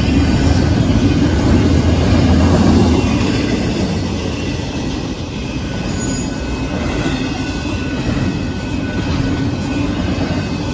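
Union Pacific double-stack intermodal freight cars rolling past: a steady rumble of wheels on rail, loudest in the first few seconds and easing a little after. Faint high-pitched wheel squeal runs through it.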